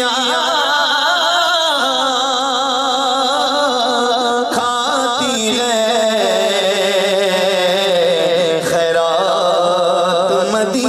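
A man singing a naat solo into a microphone over a PA system, drawing out long ornamented vowels with a wavering vibrato, with a short break about four and a half seconds in.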